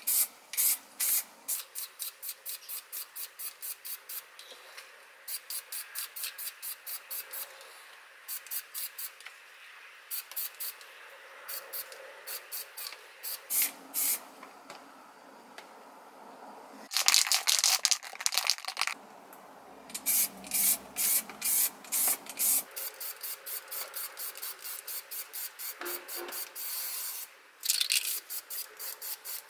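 Aerosol spray paint can hissing in runs of short, quick bursts, about four a second, with a couple of longer continuous sprays partway through and near the end.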